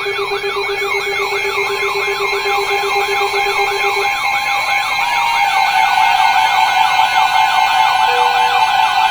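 Emergency Alert System warning tones: an electronic siren tone sweeping rapidly up and down, about twice a second, over several steady alert tones. About halfway through, a louder steady two-note attention tone comes in, signalling a tornado warning.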